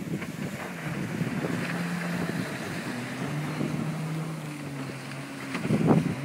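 Kawasaki Ultra 300X jet ski's supercharged four-cylinder engine running at speed across the water, its pitch bending up and down slightly as it turns. Wind buffets the microphone.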